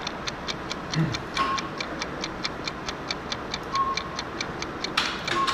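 Steady rapid mechanical ticking, roughly five ticks a second, with three short faint beeps spread through it.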